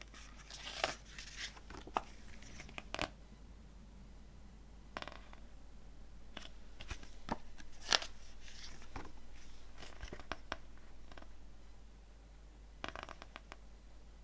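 A CD and its packaging handled by hand: scattered rustles and sharp clicks and taps of plastic and paper, with the sharpest click about eight seconds in.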